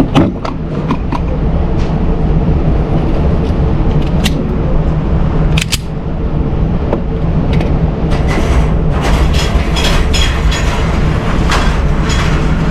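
Shooting-range noise: a steady low rumble with scattered sharp cracks and clicks, coming thicker in the last few seconds.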